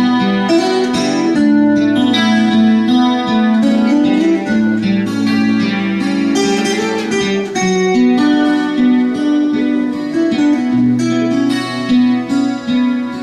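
Guitar music: an instrumental passage of picked notes over a moving line of held bass notes.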